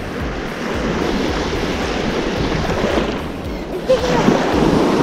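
Small waves washing and breaking in the shallows at the shoreline, a steady rushing hiss that eases briefly about three seconds in.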